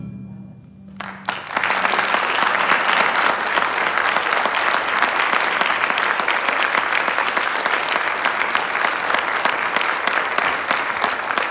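Audience applauding, starting about a second in as the orchestra's last note dies away, then steady clapping.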